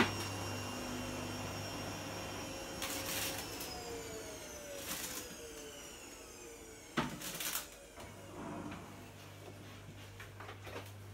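Things being moved about in an open fridge: several short knocks and clatters of jars, bottles and cartons against the shelves and door racks. Under them runs a low hum that stops for a few seconds and then comes back.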